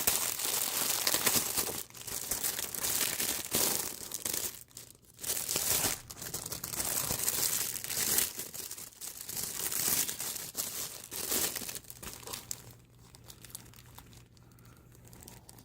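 Plastic wrapping crinkling and tearing in irregular bursts as shrink-wrapped card-game supplies are unwrapped by hand, quieter over the last few seconds.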